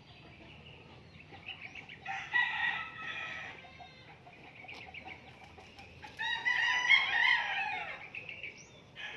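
Rooster crowing twice: a crow about two seconds in, then a longer, louder one about six seconds in that drops in pitch at its end.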